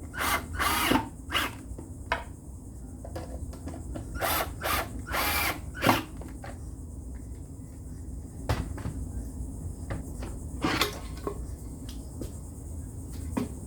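Power drill driving pocket-hole screws to join two boards, run in about ten short bursts, several in quick succession at the start and around the middle, with single ones later.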